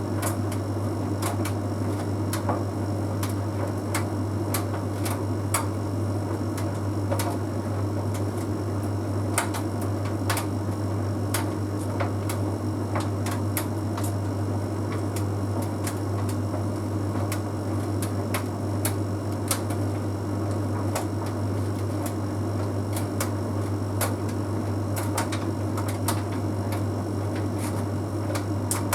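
Bosch Series 6 heat pump tumble dryer running mid-cycle: a steady low hum with irregular light clicks and taps as the half load of synthetic clothes tumbles in the drum.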